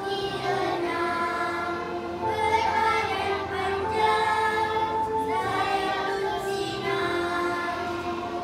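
A group of young children singing together to a musical accompaniment, holding long notes.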